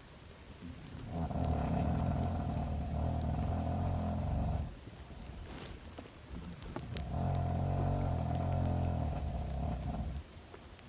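A sleeping girl snoring: two long, loud snores, each lasting about three and a half seconds, with a quieter breath between them.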